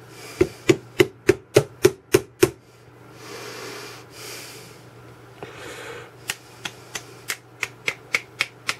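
Metal tool tapping the barrel wedge of a Colt Walker percussion revolver, driving it through the frame: two runs of quick, sharp taps, about three a second, with a few seconds of handling rustle between them.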